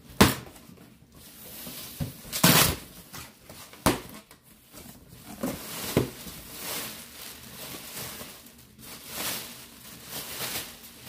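Cardboard box being opened and unpacked by hand: flaps and packing rustling, with several sharp knocks and thumps. Plastic packaging crinkles near the end.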